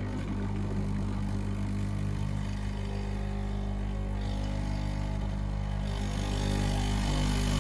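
Breville Dual Boiler espresso machine's vibratory pump buzzing steadily as it flushes hot water through the group head, clearing old water from the group and heating the cup below. It gets slightly louder near the end.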